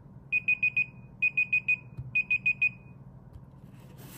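Lenovo smartphone's timer alarm going off as the countdown hits zero: three quick groups of four short, high-pitched beeps, then it stops.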